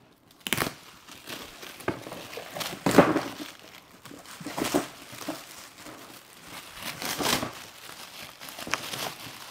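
Shiny metallic gift wrap being torn and crumpled off a cardboard toy box: irregular crinkling and ripping, loudest about three seconds in.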